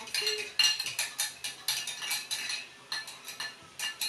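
Small metal whisk clicking against a glass mixing bowl while pancake batter is stirred, a quick even rhythm of about four strokes a second.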